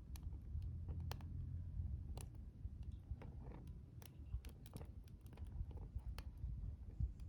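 Wood bonfire crackling: irregular sharp pops and snaps, several a second, over a steady low rumble.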